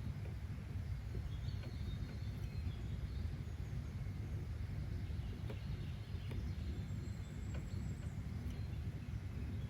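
Steady outdoor nature ambience: a low, even rumble with faint scattered bird chirps over it.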